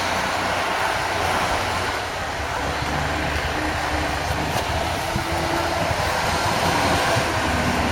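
Heavy bulldozer engine running steadily while clearing snow, a continuous low rumble with a noisy hiss over it.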